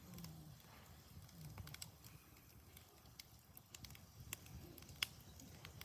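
Campfire wood crackling faintly, with irregular sharp pops spread through, the loudest about five seconds in.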